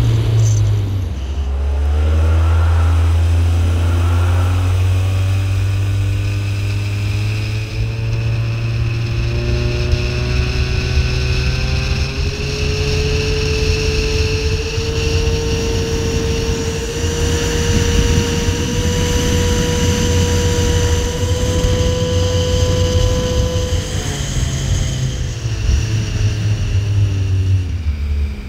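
Speedboat's outboard motor running hard under way, with a steady low drone. Its pitch climbs over the first dozen seconds as the boat speeds up, holds, then drops off as it eases back about four seconds before the end.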